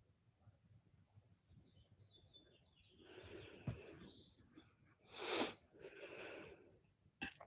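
Quiet room tone, then a woman's noisy breaths from about three seconds in, the loudest a short hard exhale about five seconds in followed by a longer breath, with a sharp click near the end.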